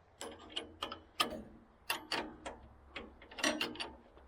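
Irregular sharp metal clicks and clinks of a wrench working on a bolt as it is tightened by hand, taking care not to over-tighten.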